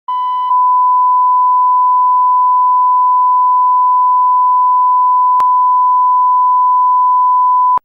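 Bars-and-tone line-up signal: a loud, steady 1 kHz reference test tone that accompanies colour bars. It sounds slightly rougher for the first half-second, has one faint click about two-thirds of the way through, and cuts off suddenly near the end.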